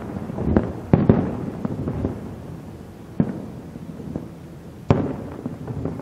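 Aerial firework shells bursting in a display: a quick run of booms in the first two seconds, another about three seconds in, and a loud one near the end, with crackling between them.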